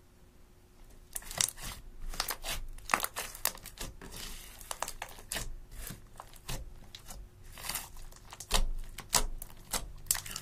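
Hands pressing and poking into glitter slime, giving a quick, irregular run of sticky clicks and pops that starts about a second in.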